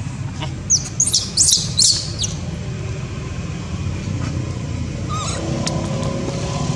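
A baby monkey squealing: about five short, sharp, high-pitched squeaks in quick succession in the first couple of seconds, over a steady low rumble. From about five seconds in, a motor vehicle's engine hum comes up.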